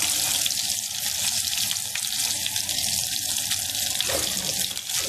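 Besan-coated potato patties (aloo tikki) deep-frying in hot oil in a kadhai: a steady sizzle and bubbling with fine crackles as the patties brown.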